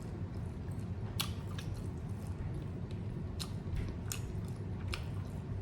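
Close-miked chewing of a taco, with irregular sharp wet mouth clicks and smacks over a steady low background hum.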